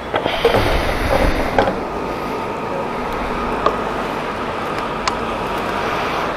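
Knocks and rattles of a motorcycle's fuel-tank filler cap being handled and shut after refuelling, then two sharp clicks as it is locked, over a steady hum.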